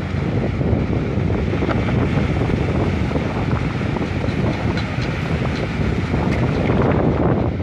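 Strong wind buffeting the microphone in gusts, over the wash of surf breaking on a pebble shore.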